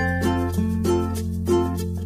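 Background music: quick plucked notes over a held bass note.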